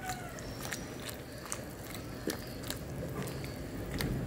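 A wooden spatula stirring leafy greens in a pot of boiling soup, with scattered light clicks and knocks.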